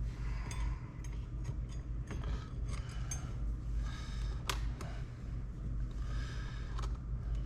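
Scattered light clicks and clinks of small metal parts being handled, fender washers and a chrome gear-shift bezel being set in place as a clamp, with one sharper click about four and a half seconds in, over a steady low hum.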